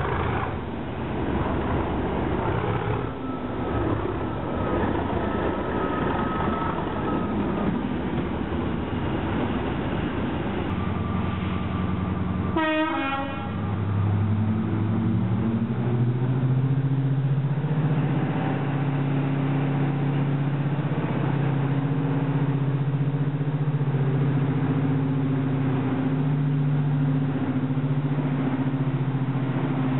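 A Class 37 diesel locomotive's English Electric engine working noisily as it pulls away. About halfway through, the sound cuts to a Class 55 Deltic's Napier Deltic engines running with a deep, steady note, rising a little in level soon after the cut.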